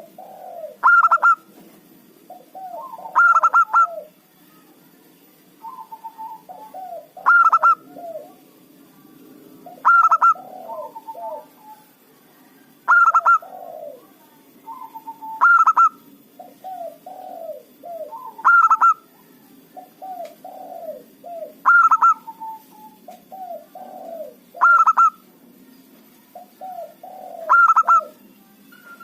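Zebra dove (perkutut) singing its cooing song, the same phrase repeated about every three seconds: a few low rolling coos, then a loud, higher ringing note.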